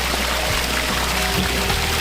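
Background music over the steady rush of running water from a pond waterfall.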